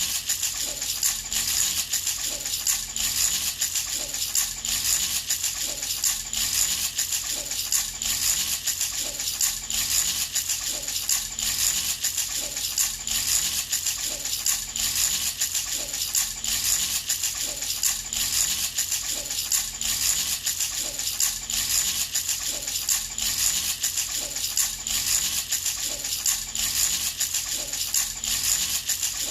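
Baby rattle shaken continuously in a steady, quick rhythm: a bright rattling clatter.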